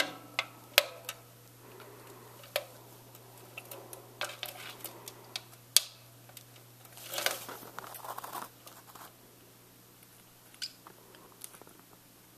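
Parrotlet bathing in a plastic clip-on bird bath: scattered sharp splashes and patters of water, with a longer flurry of splashing about seven seconds in.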